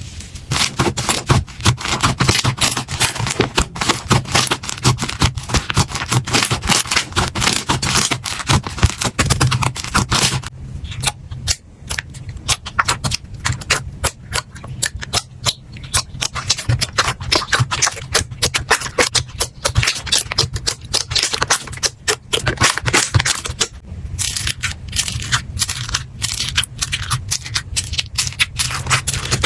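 Slime being squeezed, pressed and poked by hand, giving a dense run of rapid crackling and popping clicks. The clicks thin out briefly about ten seconds in, then pick up again.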